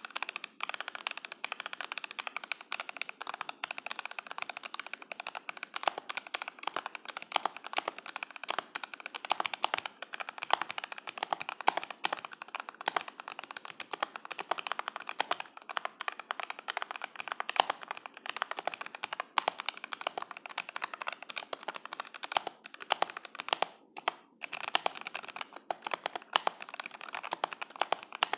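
Fast, continuous typing on a CM64 mechanical keyboard fitted with lubed Gateron Yellow linear switches and thick PBT keycaps, with a brief pause about 24 seconds in.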